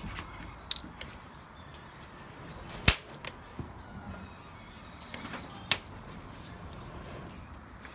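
Wood bonfire crackling: burning firewood pops with about five sharp cracks, the loudest about three seconds in and another near the end, over a steady low rustle of the fire.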